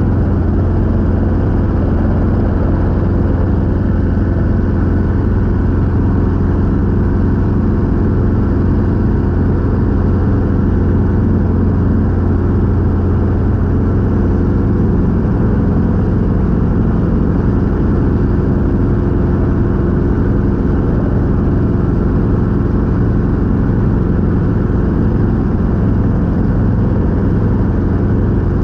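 Robinson R22 helicopter's piston engine and rotors running steadily, a loud constant drone with a strong low hum and no change in pitch.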